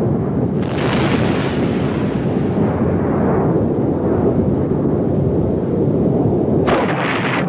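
Mount Etna erupting: a continuous low rumble with a loud explosive blast about a second in that fades away over a few seconds, and another sudden burst near the end.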